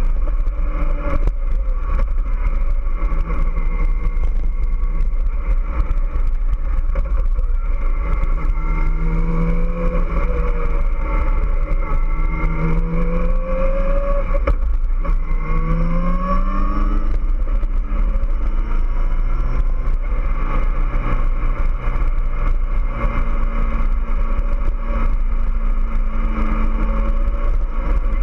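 Kawasaki ZX-14R's 1441 cc inline-four engine under way, its pitch climbing three times in quick succession from about a third of the way in to just past halfway, then running steadily at cruise. A constant low rumble of wind buffets the bike-mounted microphone throughout.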